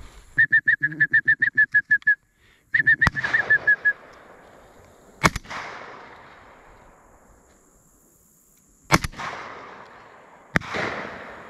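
Shotgun shots at doves: sharp reports a few seconds apart, each trailing off in a rolling echo across the open field. In the first four seconds a rapid, high-pitched chattering call runs twice.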